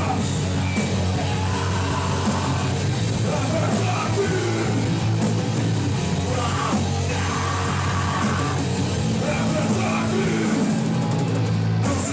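Hardcore punk band playing live: loud distorted guitars and drums with shouted vocals.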